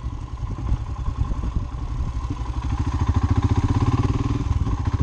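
Royal Enfield Himalayan's single-cylinder engine running as the motorcycle rides along, an even beat of firing pulses that grows a little louder partway through.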